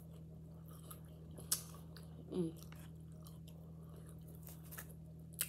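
Close-miked mouth sounds of a woman chewing a forkful of sautéed vegetables, including a piece of pepper. There are sharp clicks about a second and a half in and again near the end, and a short vocal sound in the middle, over a steady low hum.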